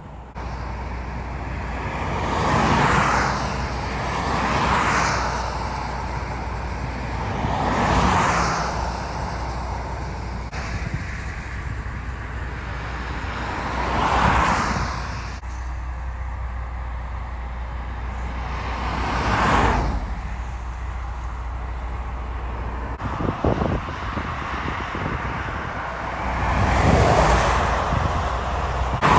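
Highway traffic: vehicles passing close by one after another, each swelling and fading over a second or two, about six in all, over a steady low rumble.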